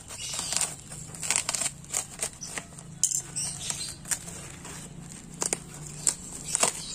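Brown packing tape and a paper label being picked at and peeled off a taped cardboard parcel by hand: irregular sharp crackles and crinkles, a few louder than the rest.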